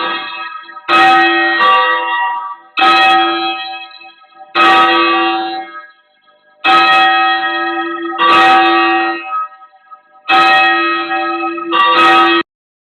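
Church bells rung at bell-ringing practice, loud and noisy: a strike every second or two, each ringing on and dying away, until the sound cuts off suddenly near the end.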